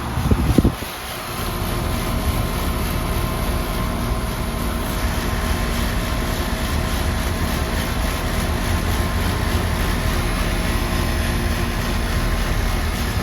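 Outdoor air conditioner unit running steadily: condenser fan and compressor hum with a few faint steady tones. A brief gust of wind hits the microphone at the start.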